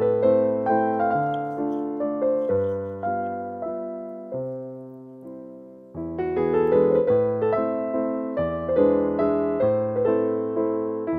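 Background piano music: a soft melody of struck notes over a low bass line. It thins and fades out about four to six seconds in, then comes back fuller.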